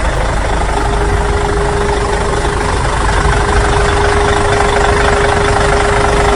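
Motor vehicle engine running steadily at idle, a dense rumble with a constant hum.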